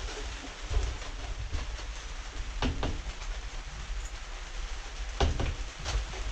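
A few sharp clicks and clunks, two close together near the middle and a cluster near the end, from an Enfield garage door lock fitted to a narrowboat's stern doors as it is tried from inside. A steady rushing noise with a low rumble lies underneath.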